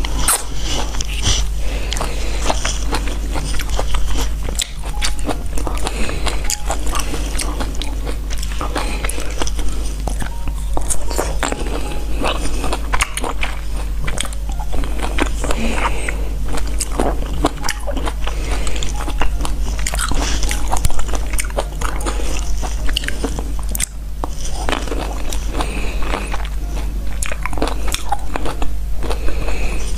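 Close-miked biting and chewing of fresh fruit, a dense run of small wet mouth clicks and smacks throughout, over a steady low hum.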